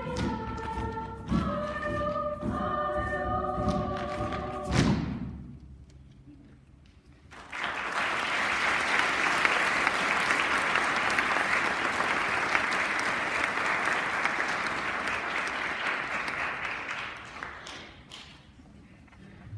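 Treble choir singing held chords over steady drum beats, the song ending on a final drum hit about five seconds in. After a couple of seconds of quiet, the audience applauds for about ten seconds, then the applause fades out.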